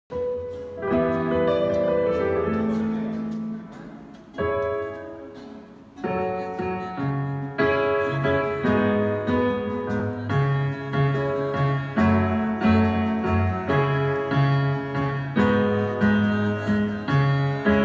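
Grand piano being played: slow sustained chords, a brief break about four seconds in, then a steady rhythmic accompaniment with repeated bass notes from about six seconds in.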